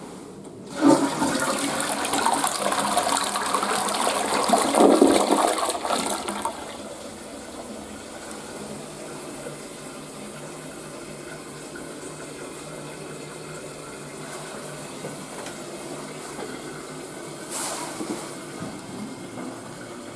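Toilet flushing: a sudden rush of water about a second in that runs for some five seconds, then a steady quieter hiss of water refilling, with a brief louder surge near the end.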